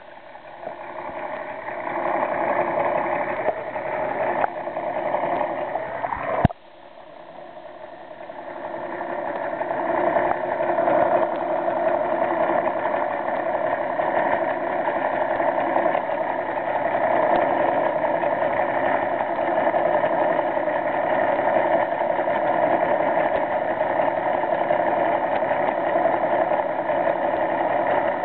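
Steady hum of an idling boat engine heard through the water by an underwater camera. About six seconds in, a sharp click cuts the level down, and the hum then builds back up and holds steady.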